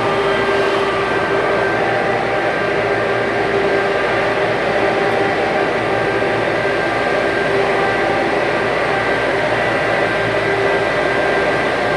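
Stick (SMAW) welding arc burning steadily during an overhead weld, a continuous hissing crackle over a steady hum from the welding machine.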